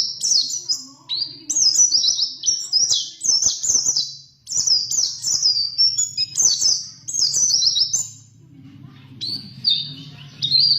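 White-eye (pleci) singing a fast, chattering song of rapid high notes in long phrases. There are short breaks about a second in and past four seconds, then a lull near the end before it starts again.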